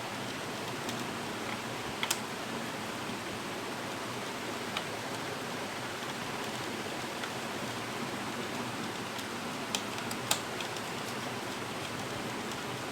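Steady background hiss with a few light, sharp clicks, one about two seconds in and two close together around ten seconds in: small clicks of a screwdriver on the heat sink's retaining nuts as they are tightened down over the processor.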